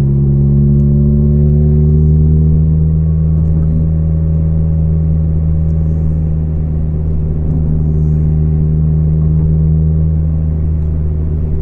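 Volvo 440 engine running under way with its exhaust broken and leaking, giving a loud, deep, steady drone. The pitch rises slightly over the first few seconds, then holds.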